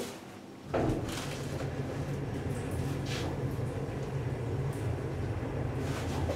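A Schindler holeless hydraulic elevator starts up less than a second in, heard from inside the car. Its hydraulic power unit then runs with a steady low hum as the car travels upward, with a few faint clicks.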